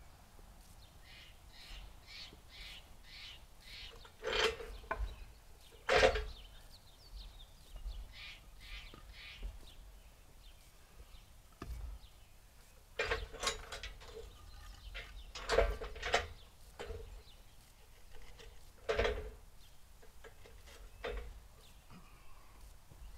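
Wooden blocks being handled and set down under the feet of a sawmill track, making a handful of sharp wooden knocks spread out with pauses between. A bird calls in repeated series in the background.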